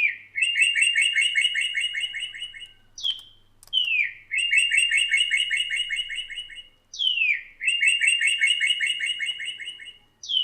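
Recorded birdsong sound effect played back with an echo effect added: the same phrase three times, each a quick falling whistle that runs into a fast trill of repeated chirps lasting about two and a half seconds.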